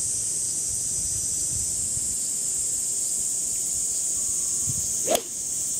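A golf club strikes a ball once about five seconds in, a single sharp crack, over a steady high-pitched hiss.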